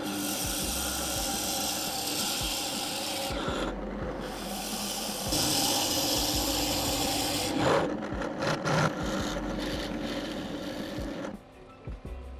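Drill press running with a steady motor hum while it works wood, giving a rasping, scraping noise. The rasp eases about three and a half seconds in, comes back strongly around five seconds, and stops about eleven seconds in.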